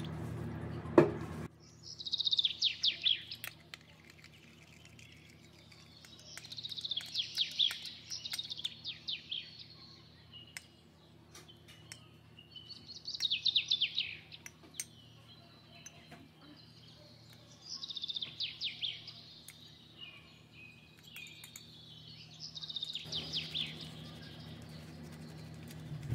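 A small songbird singing short phrases of rapid chirps that fall in pitch, repeated every few seconds, over a faint low steady hum. A single sharp click sounds about a second in.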